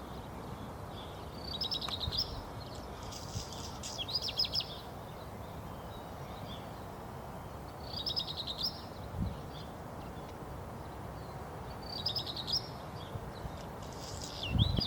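Black redstart singing: a short, high phrase every few seconds, each a quick rattling trill, over a steady low background rumble. A low thump comes near the end.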